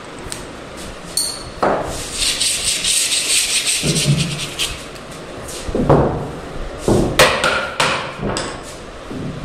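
A sanding block rubbed quickly back and forth along a snooker table's wooden cushion rail, a scratchy rasping that runs for a couple of seconds. After it come several hard knocks on the wooden rail, about one a second.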